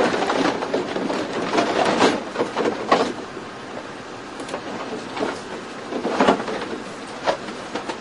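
Irregular clattering and knocking, with several sharper knocks. It is busiest in the first three seconds and picks up again around six seconds in.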